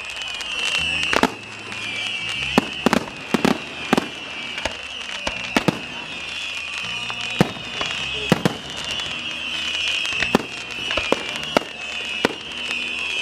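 Fireworks going off: a string of sharp, irregular bangs and pops over a continuous high wavering whistle, with music playing underneath.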